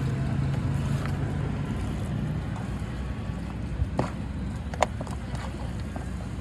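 Steady low mechanical rumble with street noise, broken by a few sharp clicks about four and five seconds in.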